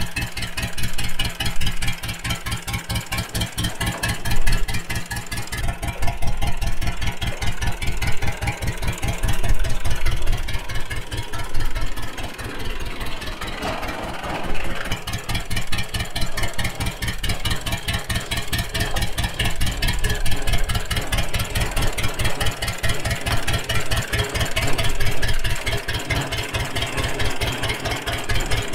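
Happy Farmer Model B 12-24 tractor's engine running with an even, rapid pulsing beat as the tractor is driven.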